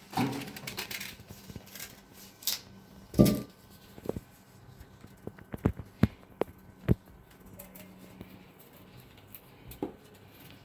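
Kitchen handling sounds as ingredients and utensils are moved about on a counter: a rustle at first, then scattered knocks and clicks, with the loudest knock about three seconds in.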